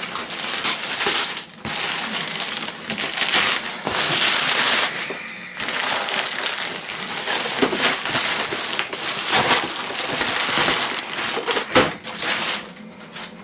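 White plastic mailing bag crinkling and rustling as it is pulled off a cardboard box and crumpled by hand. The rustle is continuous and crackly, with a couple of brief lulls, and it dies down near the end.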